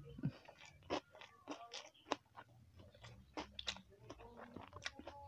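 Close-miked eating: crisp crunching bites and chewing of home-cooked food, in irregular sharp crunches about two a second.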